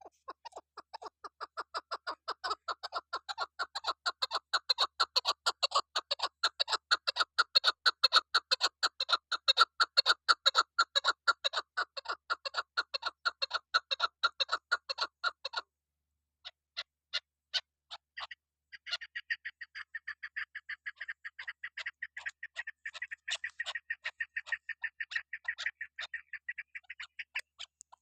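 Chukar partridge calling: a long series of rapid, repeated clucking notes for about fifteen seconds, then after a short pause a second, higher-pitched run of quick chattering notes.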